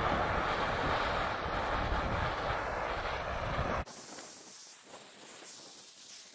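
Handheld gas torch burning with a loud, steady hiss as its flame scorches stained wood. It cuts off abruptly about four seconds in, leaving only a much fainter hiss.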